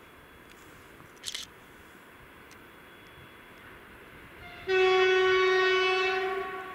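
Horn of an approaching 2TE116 diesel locomotive, one long steady blast starting about five seconds in and fading out after under two seconds. A brief high-pitched sound comes about a second in.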